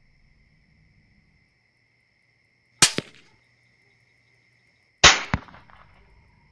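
Two rifle shots about two seconds apart, each followed a fraction of a second later by a second sharp crack. A faint steady high-pitched whine runs underneath.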